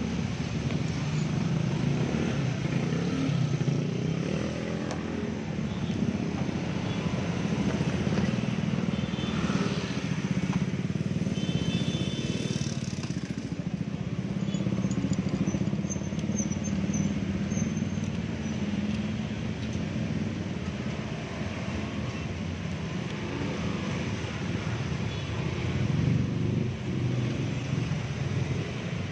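Steady low rumble of road traffic with motorcycle engines, swelling and fading slowly as vehicles pass.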